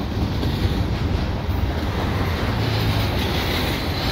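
Steady low rumble and rush of a double-stack intermodal freight train's container cars rolling past on the track below.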